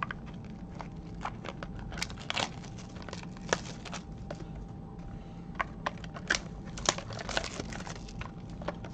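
Packaging of a box of baseball trading cards being handled and torn open: irregular crinkling and crackling, with a few sharper snaps.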